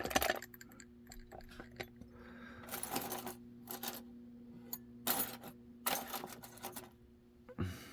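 Small metal lock parts clinking and rattling in several short bursts as they are rummaged through, over a faint steady hum.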